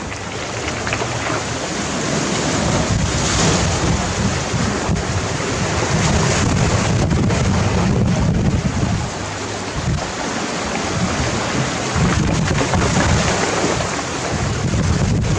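Sea waves breaking and washing over a gravel beach, a continuous surf wash that swells and eases, with wind buffeting the microphone as a low rumble.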